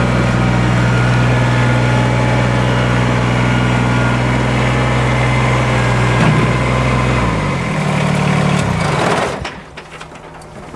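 Kubota tractor's diesel engine idling steadily, then shut off: it winds down in pitch and stops about nine seconds in.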